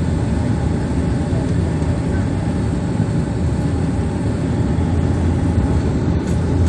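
Steady propeller drone and engine noise in the cabin of a Bombardier Dash 8 Q400 turboprop, with a low hum. A few sharp clicks near the end.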